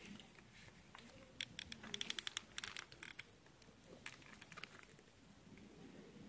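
Quiet handling noise from a full-face motorcycle helmet being turned over in the hands: a quick run of small, sharp clicks and taps for about two seconds, then a few more a little later.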